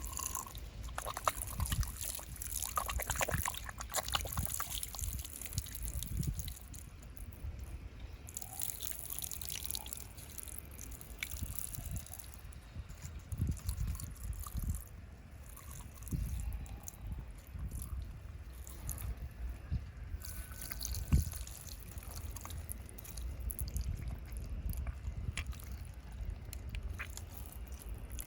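Water trickling and sloshing, with scattered small clicks and knocks.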